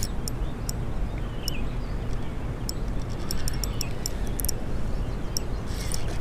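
Steady rushing noise of river water, with scattered short, sharp high ticks.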